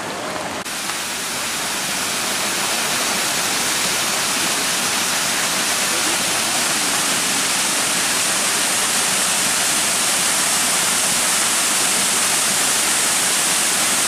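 Waterfall pouring down a rock face and splashing onto the rocks below: a steady, loud rush of falling water.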